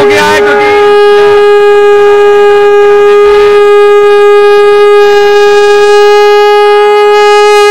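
Conch shell (shankh) blown in a shankhnaad: one long, steady note held without a break. Voices sound over it in the first second.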